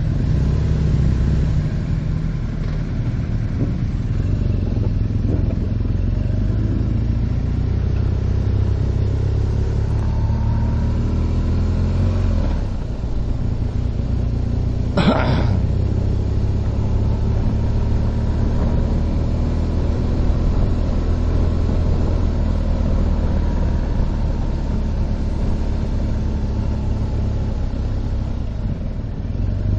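Motorcycle engine running while riding, a steady low drone with wind noise over it; the engine note dips briefly about twelve seconds in. A single sharp click or knock about halfway through.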